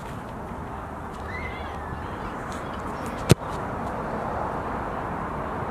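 A soccer ball struck hard once, a single sharp thud about three seconds in, over steady outdoor background noise.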